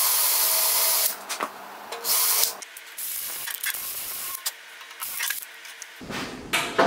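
Cordless drill boring into the band saw's metal frame, run in trigger bursts: a loud run in the first second, another about two seconds in, then lighter, shorter bursts. A sharp knock comes near the end.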